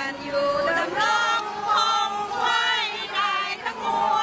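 A crowd singing together in unison, mostly women's voices, with held, wavering notes.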